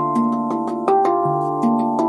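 Handpan (hang drum) played slowly, single struck notes every half second or so, each ringing on and overlapping the next in a calm melody.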